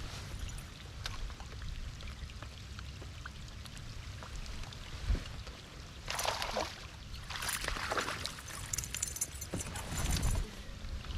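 Water splashing and pouring in several bursts, the loudest about six seconds in and again from about seven and a half to ten seconds, over a steady low rumble of wind on the microphone.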